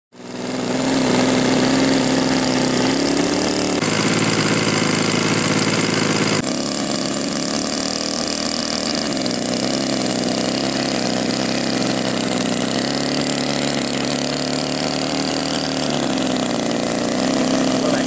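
Gasoline RC model engine (20cc two-stroke) of a Seagull A6M Zero running at idle on the ground, propeller spinning. The steady buzz fades in at the start, its pitch wandering up and down a little, and the tone changes abruptly twice.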